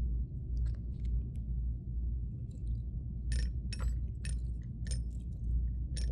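Small bell on a toy being made to ring: a few faint handling clicks, then from a little past halfway a run of quick high dings, about two a second, each ringing briefly. A steady low rumble runs underneath.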